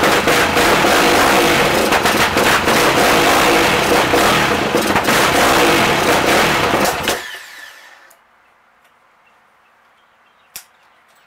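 Yamaha YFZ450R's single-cylinder four-stroke engine running loud through a Lonestar Racing full exhaust with sharp pops through it, throwing sparks from the pipe. It is shut off about seven seconds in and dies away quickly, followed by a single click near the end.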